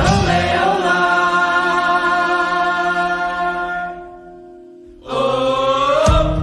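Folk song with group vocals: a long held sung note that wavers in pitch and fades out about four seconds in, then the voices come back with a new line and the full band rejoins near the end.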